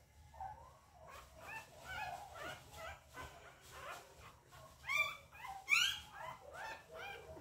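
A two-week-old puppy whimpering and squealing in a rapid run of short, high cries, with the loudest squeals about five to six seconds in.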